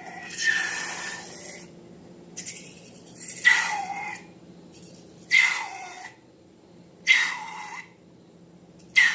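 Rubber balloon squealing and hissing in short bursts, about five of them, as air and slime are squeezed out through its stretched neck; each squeal sags in pitch as it ends.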